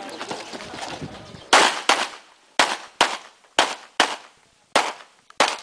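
Eight handgun shots fired in quick pairs, starting about a second and a half in, the pairs roughly a second apart: an IDPA stage being shot with double taps on the targets.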